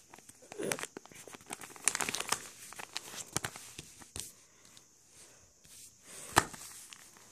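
Sheets of stiff white paper being folded, pressed and tucked together into a ddakji tile, crinkling and rustling in scattered short crackles. One sharper, louder crack comes about six seconds in.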